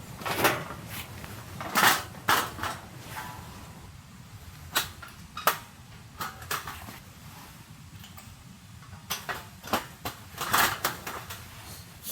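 Irregular knocks and clatter of objects being handled: a cluster of sharp knocks in the first three seconds, a few scattered through the middle, and another cluster near the end, over a steady low rumble.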